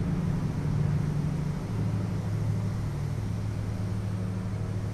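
A low, steady engine hum that drops to a lower pitch about two seconds in.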